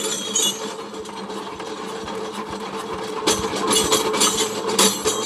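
Engine being spun over by hand crank without firing: it has not been cranked with enough force to start. A steady whirring that grows louder about three seconds in.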